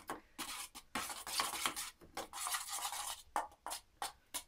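A spoon stirring and scraping melted chocolate around a stainless steel bowl in a water bath, in a run of short, irregular scraping strokes.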